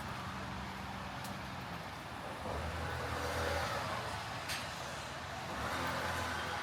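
Road traffic on a city avenue: vehicles driving past with a low engine hum. Two passing vehicles swell up, one about midway and one near the end, and there is a brief click in between.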